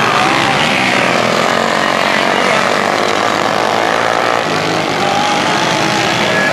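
Several racing kart engines running hard around a dirt oval, a dense buzzing drone in which individual engine pitches rise and fall as the karts go through the turn and past.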